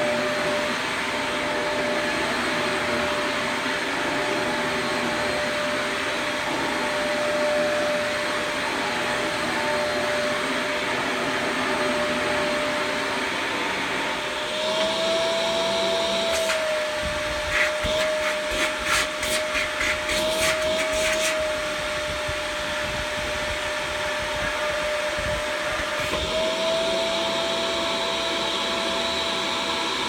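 2001 Fantom Wildcat upright vacuum cleaner running with its brush roll on carpet: a steady motor whine. The pitch rises slightly about halfway through, a few seconds of clicks and rattles follow, and the pitch rises slightly again near the end.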